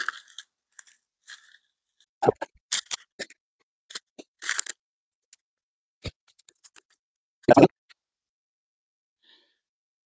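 Scattered crunching and rustling of dry, papery birch bark and tinder being handled and packed into a small folding wood stove, with boots shifting on crusty snow. The loudest crunch comes about seven and a half seconds in.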